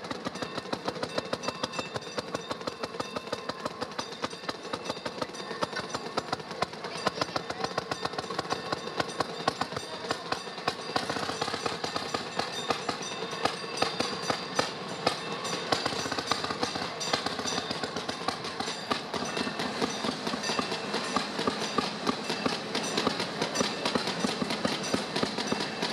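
Railroad motorcar's small engine running steadily with a rapid, even beat, heard from on board, loud and overbearing, as the car rolls along the track. Frequent sharp clacks stand out over it, the wheels over rail joints.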